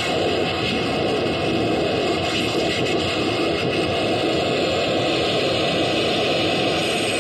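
Experimental sound machine putting out a steady, dense wash of noise, like a continuous jet-like rumble mixed with static, with no breaks or changes.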